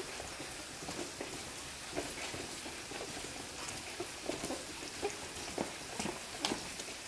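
Footsteps and the rustle of loads as several men in rubber boots walk along a dirt path carrying heavy sacks of coffee cherries, a string of soft irregular steps and knocks over a steady outdoor hiss.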